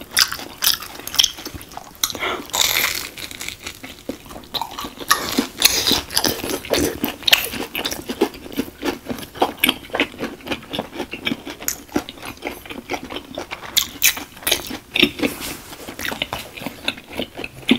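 Close-miked chewing and biting of crispy fried Korean corn dogs with a breadcrumb and sugar coating: a dense, irregular run of crunchy crackles and wet chews.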